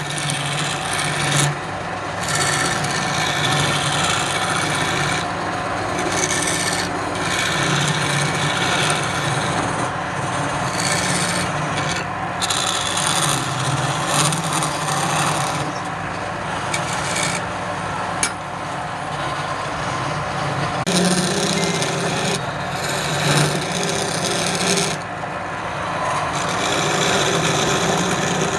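Wood lathe running while a tool scrapes and rubs against the spinning wood. The rough cutting noise comes and goes in passes over a steady motor hum.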